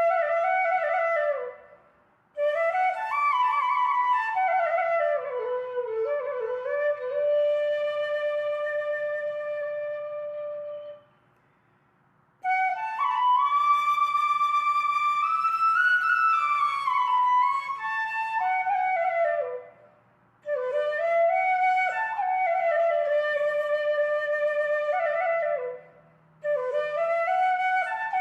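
Solo flute music: a slow melody of gliding and held notes, played in phrases with short pauses between them.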